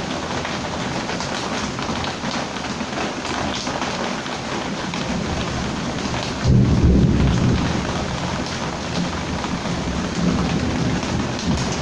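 Heavy rain falling steadily, with a sudden low rumble of thunder a little past halfway, the loudest moment, which fades over about a second.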